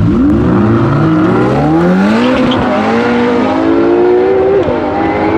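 Ferrari LaFerrari's V12 hybrid and Ferrari 488 Pista Spider's mid-engined V8 launching together at full throttle in a drag race. Engine pitch climbs hard through the gears, dipping at each upshift, about two, three and a half and four and a half seconds in.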